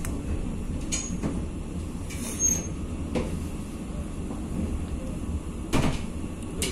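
Passenger train heard from inside the door vestibule while it runs: a steady low rumble, with several sharp knocks and clatters and two brief high squeaks, about a second and two and a half seconds in.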